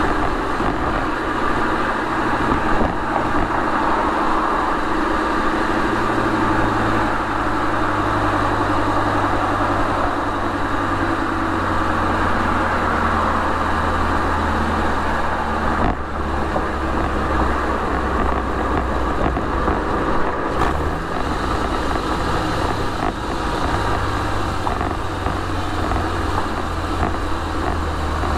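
Porsche 911 Carrera 4's flat-six engine and exhaust running under way, heard close to the tailpipes over steady road and tyre noise. The engine note changes pitch a few times as the car's speed changes.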